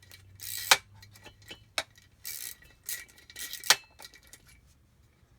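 Metal parts of a Kawasaki SXR 800 jet ski pump clinking and knocking as they are handled, about five sharp knocks with a couple of short scrapes in between, falling quiet for the last second or so.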